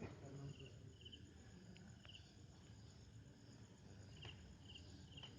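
Near silence with faint, regular cricket chirping: short chirps in twos and threes, and a few soft clicks.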